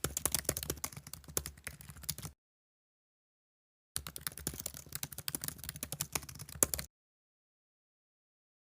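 A garage roller door running with a dense, rapid clatter of clicks and rattles, in two bursts of about two to three seconds with a silent gap between them: the noisy door before its service.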